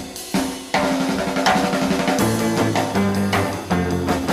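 Background rock music: a drum kit playing alone, with sustained bass notes coming in about two seconds in.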